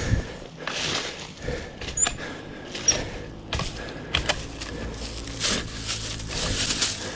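Shrub branches rustling and snapping as a shrub is pulled out by hand, with several sharp cracks among the swishes.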